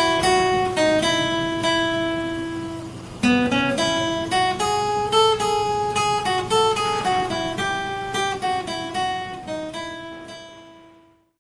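Intro music: a plucked acoustic guitar melody. It restarts about three seconds in and fades out near the end.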